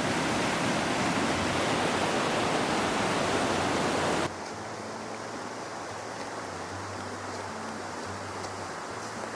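Rushing waterfall: a loud, steady wash of water noise that cuts off abruptly a little over four seconds in. After the cut there is a much quieter background with a faint low hum and a few light clicks.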